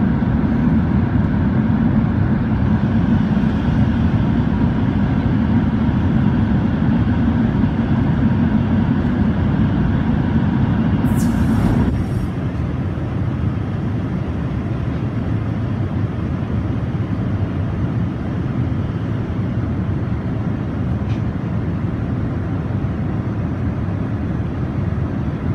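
Steady in-flight cabin noise of an Airbus A380 at cruise: an even rush of airflow and engines, heaviest in the low range. It drops a little in level and loses some of its low hum about twelve seconds in.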